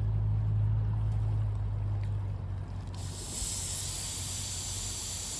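Gas hissing from the burner of a small screw-on canister camping stove as its valve is opened; the steady high hiss starts a little past halfway, unlit. Underneath, a low steady rumble fades over the first few seconds.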